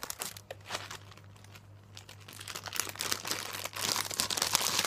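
Thin plastic packaging crinkling and crackling as a squishy toy is handled and unwrapped: scattered crackles at first, then a dense, louder crinkling through the second half.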